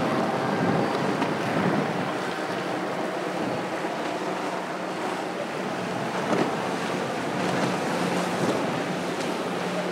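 Boston Whaler 220 Outrage center console under way, its single Mercury outboard running steadily beneath the wash of whitewater and chop, with wind buffeting the microphone. A brief louder splash about six seconds in.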